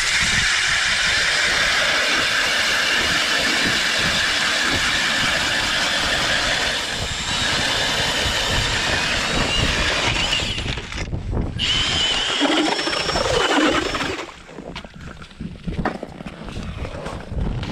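Powered ice auger boring a hole through lake ice: a steady, loud grinding rush of the blades cutting and throwing ice chips. It stops briefly near the middle and cuts off about 14 seconds in as the hole is finished.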